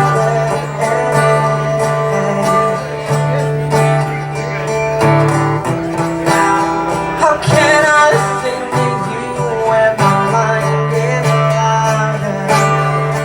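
A live song on acoustic guitar with a singing voice.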